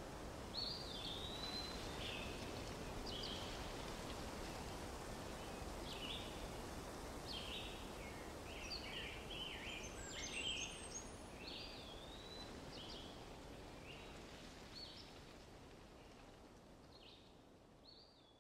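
Faint outdoor forest ambience: a steady background rush with birds chirping again and again in short, high calls, some sliding in pitch. The whole fades out near the end.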